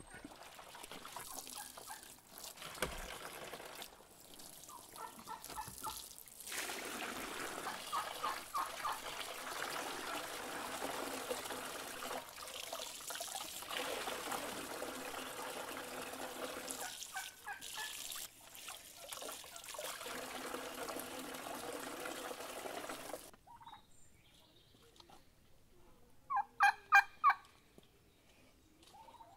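Water running and splashing into a metal washing basin as clothes are scrubbed and wrung by hand, cutting off suddenly. A turkey gobbles a few times, loudest in a quick burst of gobbles near the end.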